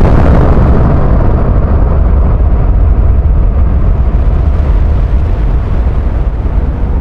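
Heavy low rumble of an explosion, loud and slowly fading.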